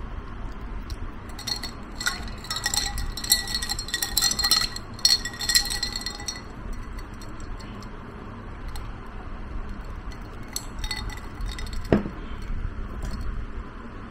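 Ice cubes clinking against a tall drinking glass as the iced drink is stirred with a straw, in a busy run of ringing clinks early on and a few more later, with one solid knock near the end.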